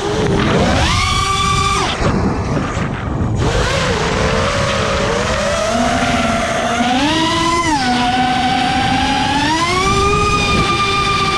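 FPV quadcopter's brushless motors whining over a hiss of rushing air, the pitch rising and falling with the throttle. It jumps up about a second in and drops back near two seconds, climbs again briefly around seven seconds, then rises near ten seconds and holds high.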